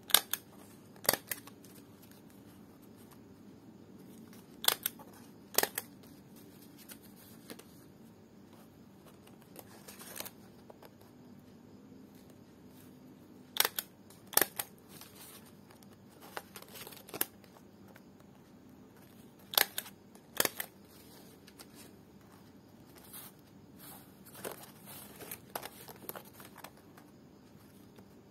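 Small hand stapler snapping staples into strips of dried lontar palm leaf (ental): sharp clicks, mostly in pairs about a second apart, every few seconds, with light rustling of the leaf strips being handled in between.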